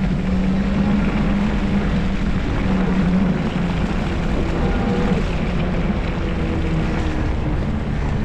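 Steady rush of wind and road noise from riding an e-bike, with a low wavering hum running underneath.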